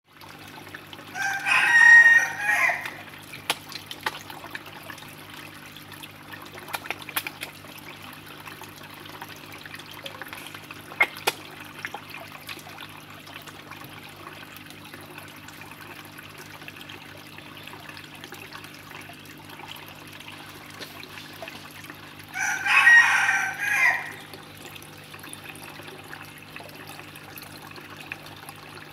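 A rooster crowing twice, once about a second in and again near the end, each crow about a second and a half long. Between the crows there are a low steady hum and a few small water splashes and trickles.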